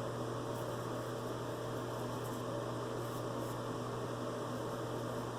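Steady low hum with an even hiss over it, unchanging throughout, with no distinct scraping strokes or clicks.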